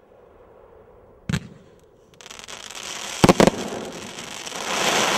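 Fireworks battery firing: a single sharp bang about a second in, then a dense crackle of bursting stars that builds toward the end, with a sharp double bang near the middle.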